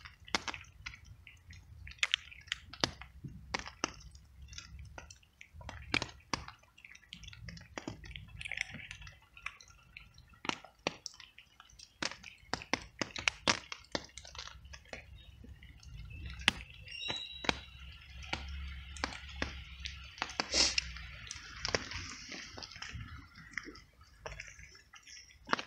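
A cat crunching dry kibble close up: quick, irregular crisp crunches and clicks as it chews.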